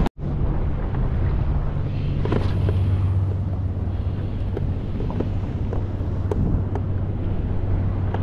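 Wind buffeting the microphone over choppy sea around a kayak, a steady low rumble with water splashing; the audio drops out for an instant near the start.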